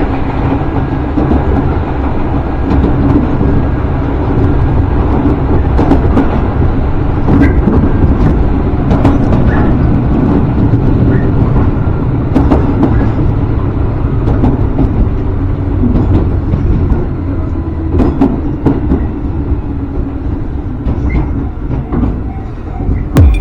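Tobu Kameido Line commuter train running: a steady, loud low rumble with scattered sharp clicks from the wheels and track.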